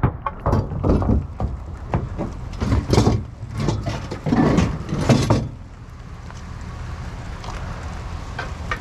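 Knocking and clattering of salvaged curbside items, table legs among them, being handled and loaded, a dense run of bangs for about five seconds. After that only a steady low background noise remains.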